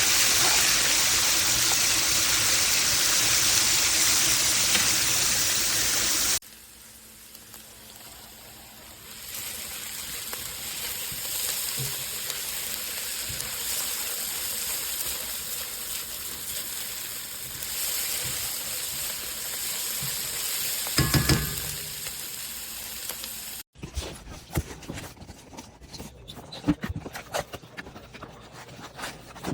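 Food frying in oil in a pan: a loud, steady sizzle that cuts off suddenly about six seconds in, then a quieter sizzle. Near the end come scattered clicks and knocks.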